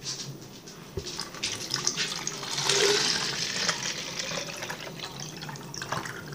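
Water running from a kitchen tap, swelling louder about three seconds in, with a sharp knock about a second in.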